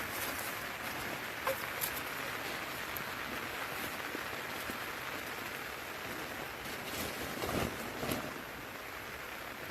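Steady rain falling and pattering on surfaces, with a few louder drips or taps near the end.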